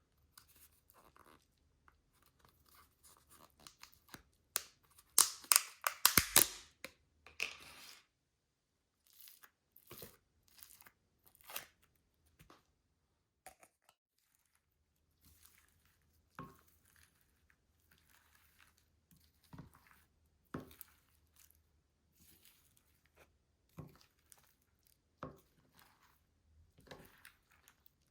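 Slime being worked by hand, giving sticky crackling and tearing sounds. They are loudest and densest from about five to eight seconds in, then come as scattered short pops and crackles.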